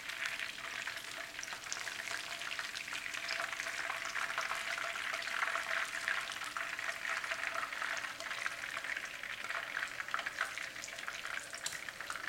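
Batter-coated chicken nugget pieces shallow-frying in hot vegetable oil in a frying pan, a steady dense crackling sizzle.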